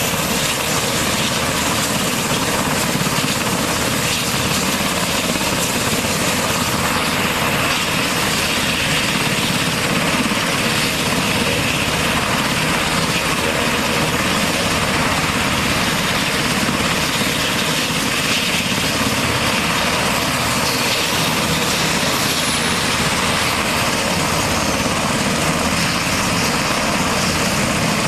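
UH-60 Black Hawk helicopter running on the ground, its twin turboshaft engines and main and tail rotors making a loud, steady noise.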